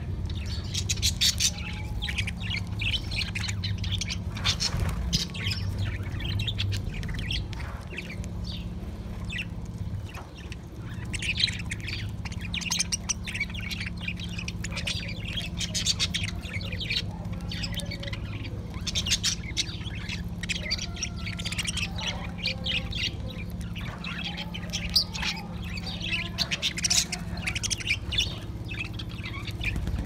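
A flock of budgerigars chattering and chirping, many short high calls overlapping without a break.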